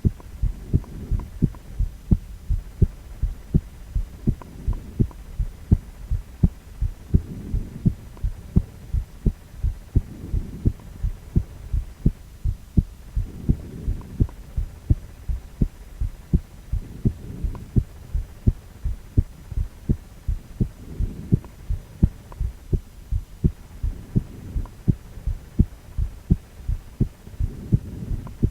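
A man's heartbeat, amplified: regular low thumps over a low hum, with no break in the rhythm.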